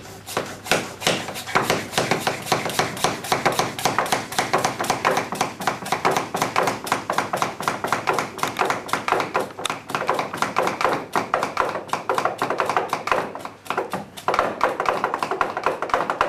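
Vacu Vin hand vacuum pump being worked rapidly on a coffee storage container, a fast steady run of tapping plunger strokes as air is pumped out of the container, with a short break near the end.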